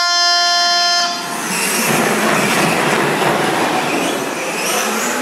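An electronic race-start tone sounds for about a second. It is followed by the steady whirring hiss of a pack of radio-controlled cars' motors and drivetrains running on the track.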